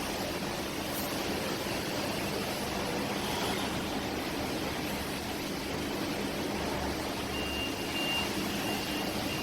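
Drain pump of an IFB Senator Plus VX front-loading washing machine running in test mode, a steady hum with water rushing out through it as the drum drains.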